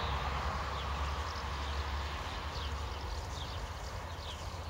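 Wind buffeting the microphone in a steady low rumble, with a few faint, short, high chirps over it.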